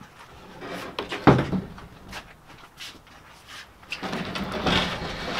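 Wooden floor panels being handled and set into an aluminum boat hull: scattered knocks and clatter, the loudest a sharp bang about a second in, with a burst of rattling near the end.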